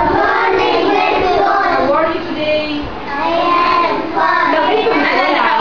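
A child singing, with only short pauses.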